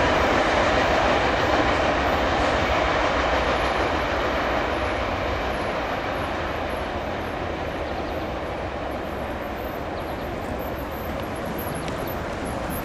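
Freight train's cars rolling past on the rails: a steady rumble of wheels on track that slowly grows fainter.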